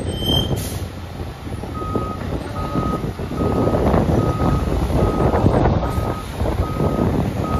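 Fire engine's backup alarm beeping steadily, about one beep every 0.8 seconds, starting about two seconds in, as the engine reverses into its station. Under it the truck's diesel engine rumbles.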